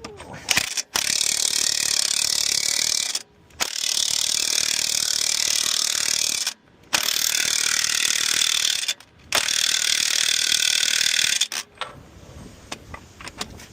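A power wrench on truck wheel nuts, running in four bursts of two to three seconds each with short pauses between them.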